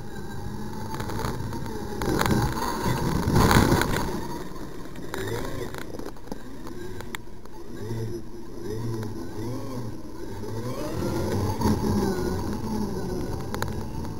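Radio-controlled trophy truck driving hard on loose dirt, its motor revving up and down in rising and falling whines as it accelerates and slides. It is loudest a few seconds in and again near the end.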